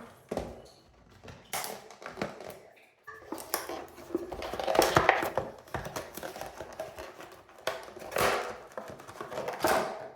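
A plastic shower head being handled, giving irregular clicks, taps and rustles.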